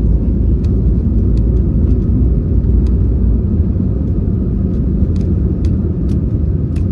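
Airbus A321neo's geared turbofan engines at takeoff thrust, heard from inside the cabin as a steady deep rumble, with a few faint ticks over it.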